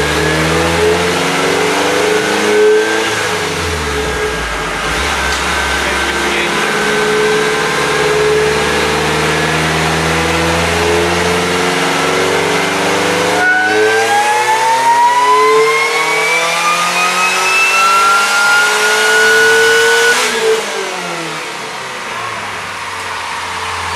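Supercharged Pontiac Solstice four-cylinder engine running on a chassis dyno, its revs stepping up and down through the gears. About 13 seconds in, it makes one long full-throttle pull, the revs climbing steadily with a rising supercharger whine for about six seconds. Then the throttle closes and the revs fall away.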